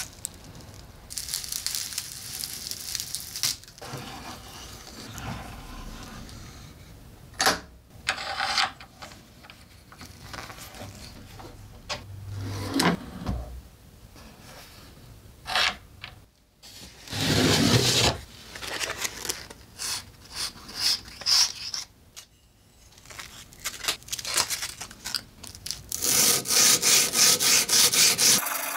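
Scattered scrapes and rubs of hand work on a steel knife clamped in a bench vise. Near the end these give way to fast back-and-forth strokes, about four a second, of hand-held abrasive sanding the bare carbon-steel tang of a yanagiba sashimi knife to take off rust.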